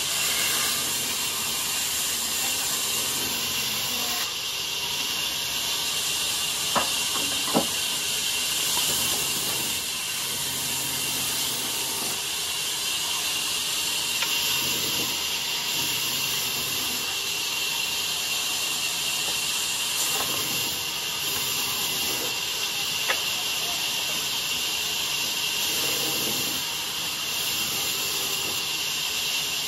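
Large band saw running and cutting through a wooden slab fed by hand: a steady, hissing rasp of the blade. Two sharp knocks come about seven seconds in, and one more about twenty-three seconds in.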